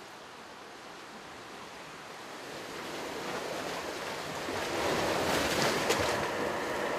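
Seawater surging up a narrow channel in the shoreline limestone rock: a rushing, foaming swell that builds from about two seconds in, is loudest near the end, then eases off. It is the wave action that gradually widens these channels.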